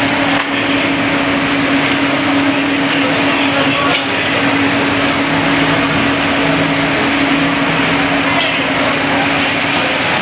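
Busy street-stall din: a loud, even rush of noise with a steady low hum under it and indistinct voices, the hum stopping near the end.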